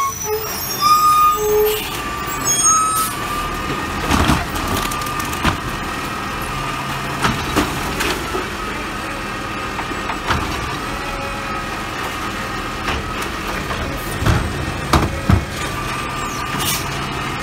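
Automated side-loader garbage truck's diesel engine running with a steady hydraulic whine while its arm lifts and dumps carts into the hopper. There are several sharp knocks along the way, the loudest near the end, as the carts bang against the hopper and the arm.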